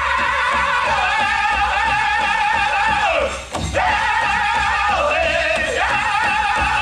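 Powwow drum group singing a chicken dance song: high-pitched voices in unison over a steady beat on a big powwow drum. The singing breaks off briefly about three and a half seconds in, then picks up again.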